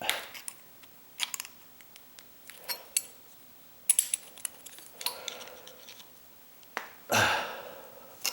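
Pliers gripping and bending the angled tab of a metal door strike plate: scattered sharp metallic clicks and short scrapes, with a loud puff of noise about seven seconds in.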